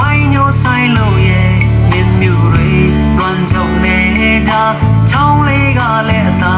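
A song with singing and guitar over heavy bass, played through the Ceflar M1110 soundbar and its subwoofer as a sound test.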